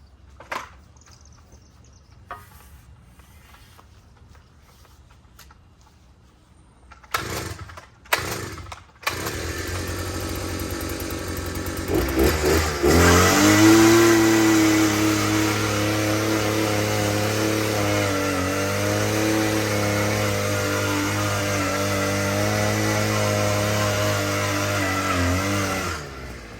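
An engine starts after a few loud knocks and bumps, settles into a steady run at an even pitch for about thirteen seconds, then shuts off near the end.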